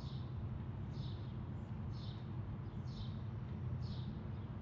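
2019 Yamaha MT-07's parallel-twin engine idling through an aftermarket exhaust, a low steady rumble. A small bird chirps over it, a short falling note about once a second.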